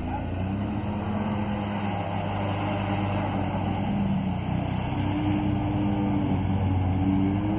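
Off-road racing vehicle engine working hard through mud, its pitch rising and falling with the throttle and growing slightly louder.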